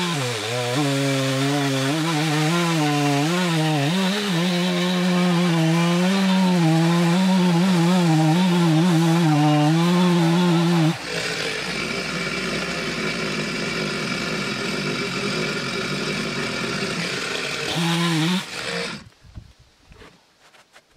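Gas chainsaw cutting into a green butternut log, its engine pitch wavering under load. About 11 seconds in the sound turns rougher and noisier. The saw stops about 19 seconds in, followed by a few faint knocks of wood being handled.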